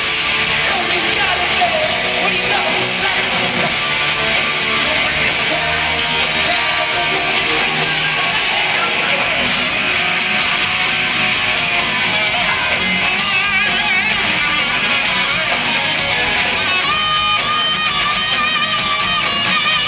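Hard-rock band playing live, heard from the audience: distorted electric guitars over drums and bass. Late on a lead line wavers in pitch, and over the last few seconds a long note is held.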